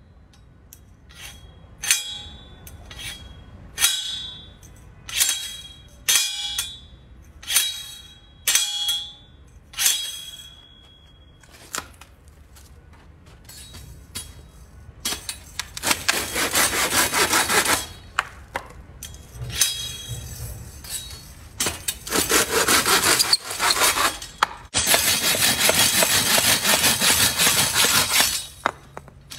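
A self-made two-bladed steel hand saw: first about eight sharp metallic clinks, each with a short ring, as the blades are worked. Then, about halfway through, fast rasping sawing through a small log in three long spells.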